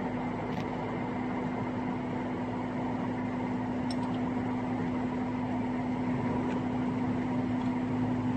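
Spiral duct forming machine running steadily: a constant mechanical hum with a steady low tone over an even noise.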